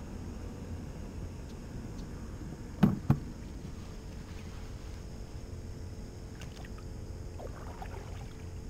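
Kayak paddling: the paddle blades dipping into calm water, faintly, over a steady low rumble. About three seconds in come two sharp knocks a fraction of a second apart, the loudest sounds.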